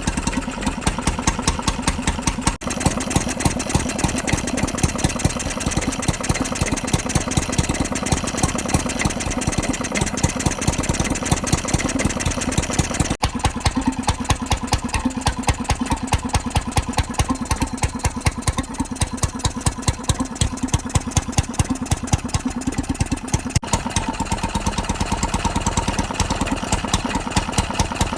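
Petter Appletop 3 hp single-cylinder stationary engine running steadily after restoration, its firing strokes beating in a regular, even rhythm.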